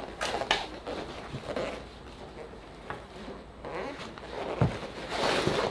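Goalie leg pads rustling and scuffing as they are moved through a stance and butterfly, with a few clicks and a dull thump about four and a half seconds in.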